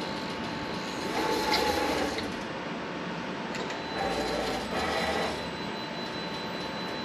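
Sunnen SV-30 CNC vertical hone running on a VW cylinder: a steady machine hum with a faint whine, swelling louder twice, about a second in and again about four seconds in.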